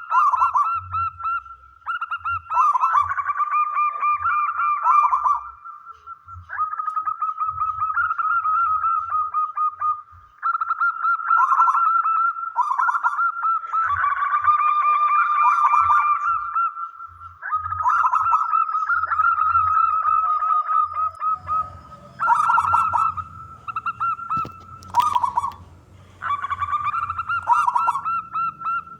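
Zebra dove cooing: long phrases of rapid, trilled coo notes, one after another with only short pauses. About two-thirds of the way through, a low rumble comes in underneath, and a single sharp click sounds a few seconds later.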